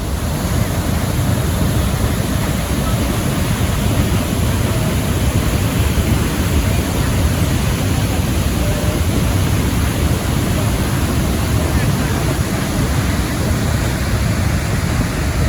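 Steady, loud rush of Niagara Falls' falling water, heaviest in the low end, with no breaks or changes.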